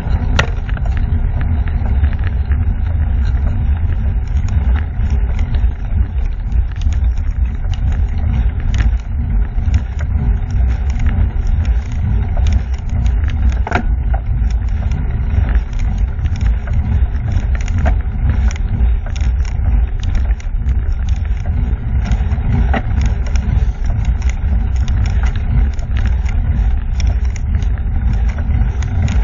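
Steady low rumble of wind buffeting the microphone of a camera carried by a rider moving along a road, with scattered small clicks and rattles throughout.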